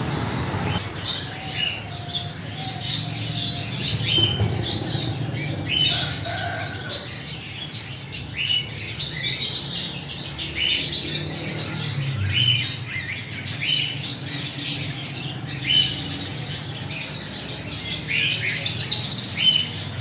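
Many caged small birds chirping, short high chirps coming every second or so from several birds at once, over a low steady hum.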